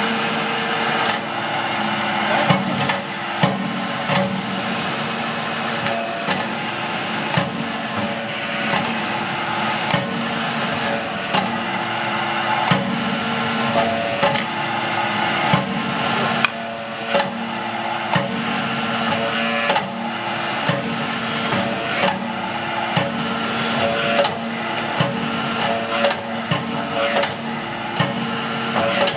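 Anyang Y04-25 hydraulic open-die forging press running: its hydraulic pump motor hums steadily, and there are irregular metal knocks and clanks as a hot steel bar is drawn out between the dies. A high whine comes and goes at times.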